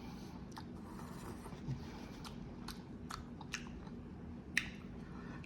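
A person chewing a mouthful of ramen noodles, with scattered faint wet mouth clicks and smacks.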